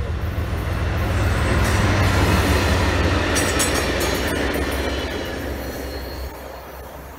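CSX GE ES40DC diesel-electric locomotive and two FRA track-inspection cars passing close by. The locomotive's low drone builds to its loudest about two to three seconds in, then the cars' wheels clatter and click over the rails about three to four seconds in, and the sound fades as the train goes away.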